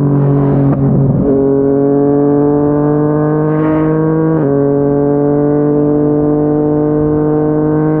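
Yamaha MT-09's three-cylinder engine through a Yoshimura R55 slip-on exhaust, pulling through the gears. The engine note drops with an upshift about a second in and again about halfway through, and climbs steadily between the shifts.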